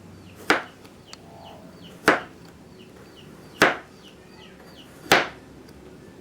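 Kitchen knife chopping vegetables on a cutting board: four separate cuts, evenly spaced about a second and a half apart.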